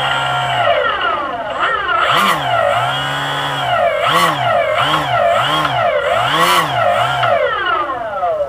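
Small model-aircraft engine running steadily, then revved up and down in about seven quick blips, its pitch rising and falling each time, before it drops away sharply at the end.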